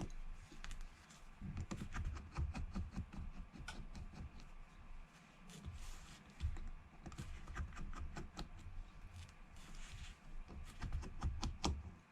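Irregular light clicks, taps and scratches of a precision screwdriver and tweezers on an opened iPhone 6's metal frame while small screws are removed, with a few soft knocks on the bench.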